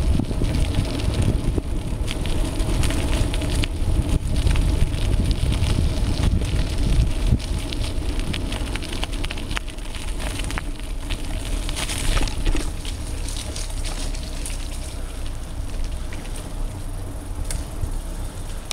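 Wind rushing over the microphone as a mountain bike is pedalled fast, with the bike's rattles and clicks and tyre noise throughout. The rush slowly dies down over the second half as the bike slows.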